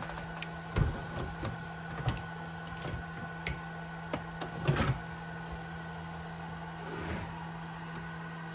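Scattered short knocks and clicks of hand tools and small parts being handled on a workbench, loudest just before halfway, over a steady low electrical hum.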